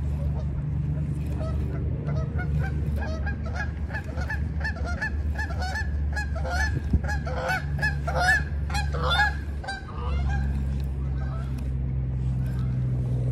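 A flock of geese honking: many short calls overlapping, busiest a little past halfway and dying away about three-quarters of the way in. A low steady rumble sits underneath.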